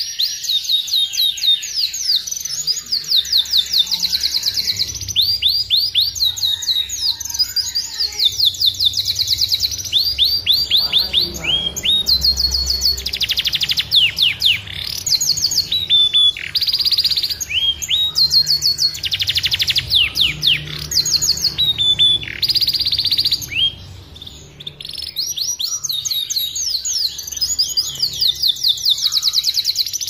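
Domestic canary singing a long, continuous song of fast trills and rapid runs of repeated high chirps, with a short lull about three-quarters of the way through.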